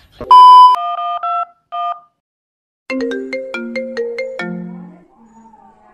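A loud electronic beep, then a few short electronic tones, then after a brief pause a mobile phone ringtone plays a stepped melody for about two seconds before fading.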